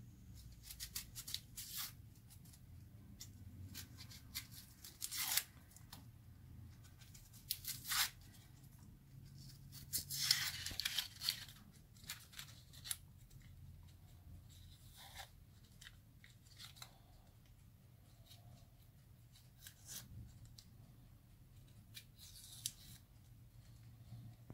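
Kitchen knife peeling the dry skin from an onion: irregular short rasps and crackles as the blade scrapes and tears the papery layers, the loudest about five, eight and ten seconds in. A faint low hum runs underneath.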